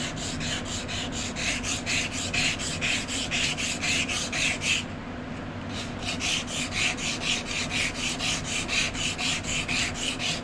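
Sandpaper rubbed back and forth by hand over a knife handle, about four strokes a second, stopping briefly about five seconds in and then resuming.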